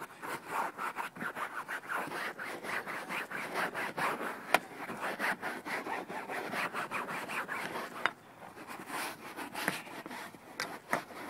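Cloth truck seat being scrubbed by hand, a rhythmic back-and-forth rubbing at about three strokes a second that turns quieter about eight seconds in.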